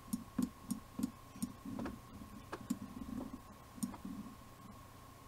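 Computer mouse clicking: a run of small, irregularly spaced clicks that thin out and stop near the end, over a faint steady tone.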